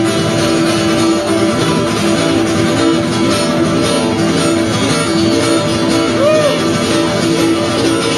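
Guitar strummed in chords, with one note ringing steadily underneath.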